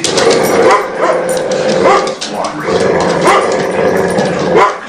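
Two dogs play-growling over a tug toy, broken by about four short yips.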